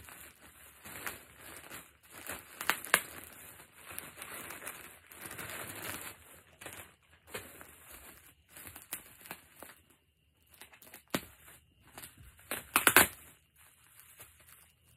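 Plastic packaging crinkling and rustling in irregular bursts as a plastic mailer sack and clear plastic clothing packets are handled and pulled open. There is a short pause about two-thirds through and a louder crackle near the end.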